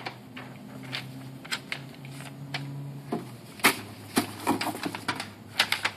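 Paper slips being folded and handled, with scattered rustles and sharp little taps that come more often in the second half. A faint low hum runs through the first half.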